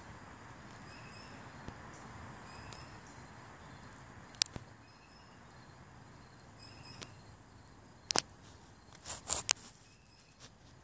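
Quiet outdoor background with faint, short, high chirps repeating every second or so. A few sharp clicks come about four and a half seconds in and again near the end.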